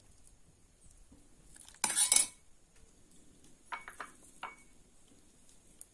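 Metal ladle clattering and clinking against an aluminium pressure-cooker pot as soup is ladled out. A louder clatter comes about two seconds in, then a few light ringing clinks near four seconds in.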